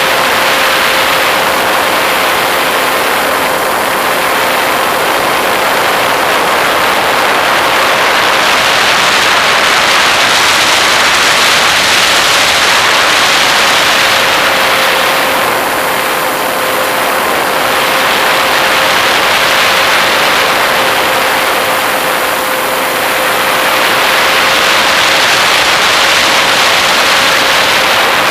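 Propeller aircraft's motor running at a steady pitch in flight, under a loud rush of airflow over the onboard camera that swells and eases a few times.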